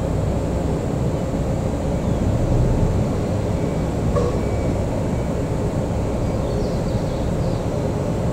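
Shinano Railway 115-series electric train moving slowly along the platform: a steady low rumble, with a faint click about four seconds in.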